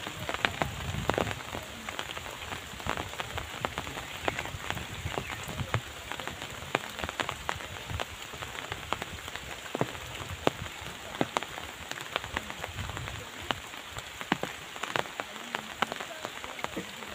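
Steady rain, with many irregular sharp ticks of drops landing close by.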